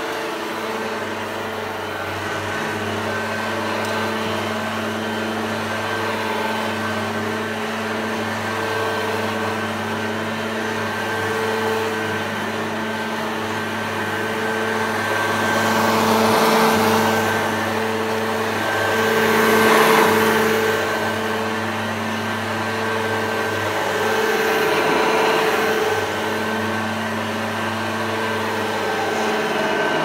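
Hoover Junior U1104 upright vacuum cleaner running, a steady motor hum with a high whine over it, the rushing of air swelling louder three times in the second half.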